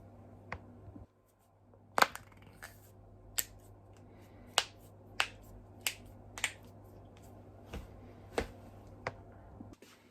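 A person's joints cracking: about a dozen sharp, separate pops at uneven intervals, the loudest about two seconds in, over a faint steady low hum.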